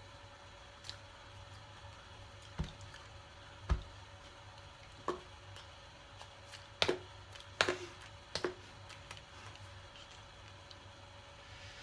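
Hands tapping, smacking and clasping together during sign language, about seven scattered soft taps over a faint steady hum.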